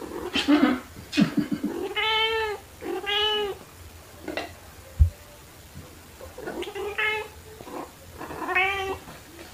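Domestic cat meowing about four times while playing, each meow a short rising-then-falling call. A sharp dull thump about halfway through, with brief scuffling near the start.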